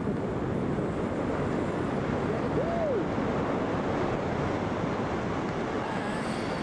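Steady wind rushing over a camera microphone during a tandem parachute descent under an open canopy. A short rising-and-falling tone rises above the wind a little before the middle.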